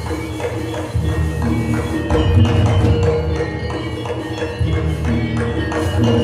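Javanese gamelan music of the kind that accompanies jathilan dance: ringing metal tones struck over and over above a steady low drum beat.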